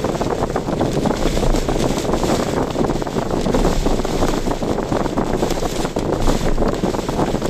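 A car driving through typhoon weather: a steady rush of wind and road noise with dense fine patter, as of rain hitting the car.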